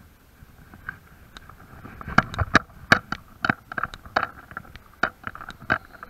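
Footsteps on a gritty flat roof: sharp, irregular steps about two or three a second that start about two seconds in, after a quieter opening.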